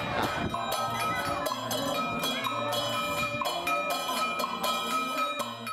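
Brass Taoist ritual handbells rung over and over in a temple ceremony: quick metallic strikes, about three to four a second, each leaving a bright ringing tone.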